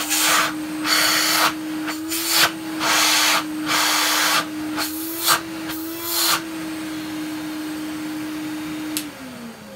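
Numatic NV250 vacuum cleaner motor running with a steady hum, with a series of loud bursts of rushing air over the first six seconds. A click about nine seconds in, then the motor's pitch falls as it switches off and winds down. The owner takes its rough running for dry motor bearings.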